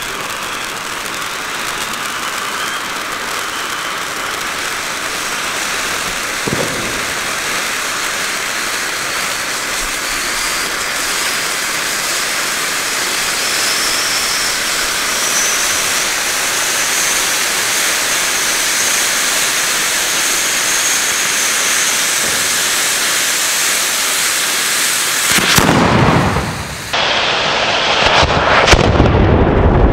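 Two Klasek 500 g silver fireworks fountains spraying sparks with a steady loud hiss, a faint whistle slowly rising in pitch under it. In the last few seconds the sound turns louder and deeper, with a short break.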